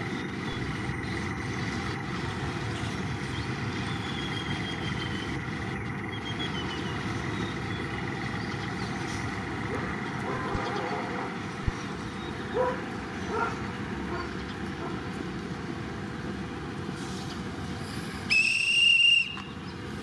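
Steady background rumble, then a single sharp, high-pitched whistle blast about a second long near the end, like a railway staff member's hand whistle.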